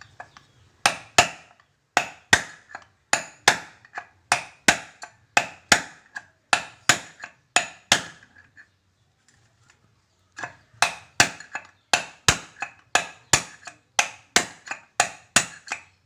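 Hammer blows knocking the worn needle bearing out of a Honda Vario 110's CVT pulley: sharp metallic strikes, each with a short ring, about two to three a second. The strikes stop for about two seconds midway, then start again.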